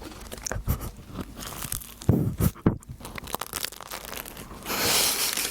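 Close-up crackling and tearing of flaky French pastry being handled, with a longer paper rustle near the end.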